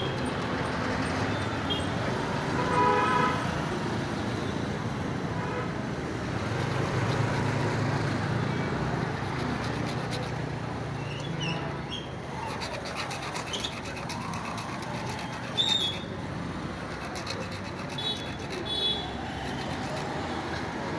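Steady road traffic noise with a vehicle horn sounding briefly about three seconds in, and a few short high chirps later on.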